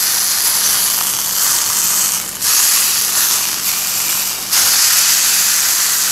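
Wagyu sirloin steak sizzling in hot olive oil in a frying pan as it is seared on its edge. The sizzle dips twice, then comes back louder about four and a half seconds in as the steak is laid flat to sear its underside.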